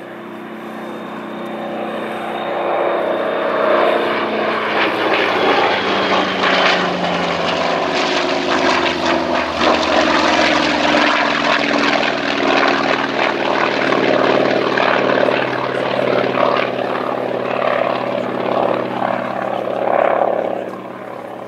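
The Douglas AD-4N Skyraider's 18-cylinder twin-row radial engine (Wright R-3350) running at display power as the aircraft makes a pass. It grows louder over the first few seconds, drops in pitch as it goes by, stays loud and then eases near the end.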